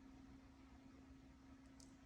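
Near silence: room tone with a faint steady hum and one faint tick near the end.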